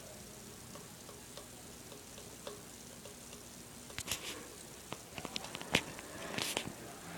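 Quiet room, then hands fiddling with a metal drink bottle and its cap: a run of small clicks and taps from about four seconds in, with a short rustle near the end.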